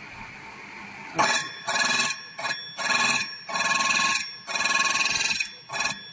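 Small key cutting machine's spindle running, then its cutter milling the cuts into a key blade: about seven loud, high, ringing bursts of cutting starting about a second in, each lasting under a second to about a second.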